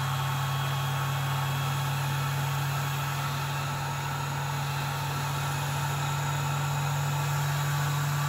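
Small bench lathe running steadily, its motor giving an even hum, spinning a drill fed into a cello bow frog to bore the pilot hole for the eyelet.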